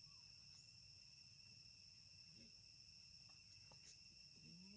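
Near silence with a faint, steady high-pitched insect chorus, a whine held at a few fixed pitches. A brief rising call starts near the end.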